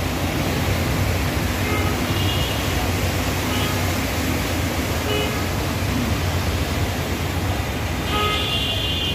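Heavy rain and traffic on a flooded street: a steady wash of rain and water with a low rumble of passing vehicles. Car horns toot faintly a few times, and a louder horn sounds about eight seconds in.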